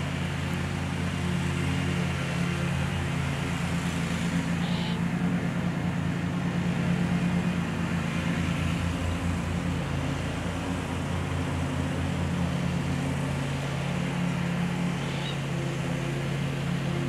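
Steady low mechanical hum, unbroken and even in level, with a fast low pulsing under it.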